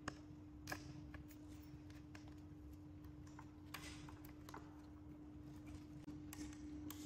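A few scattered light clicks and taps, about five, over a steady low hum.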